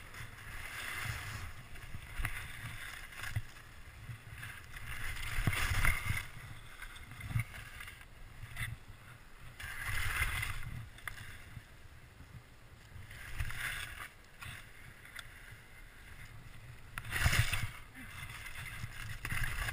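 Skis sliding and scraping over snow through a series of turns, a rising and falling hiss that swells about every three to four seconds over a steady low rumble from the body-worn camera's microphone.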